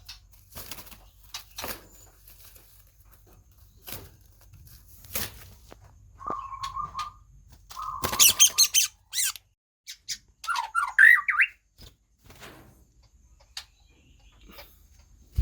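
White-rumped shamas: scattered wing flaps and knocks, two short held whistled notes, a loud harsh burst about eight seconds in, and a quick run of chirping calls near the end.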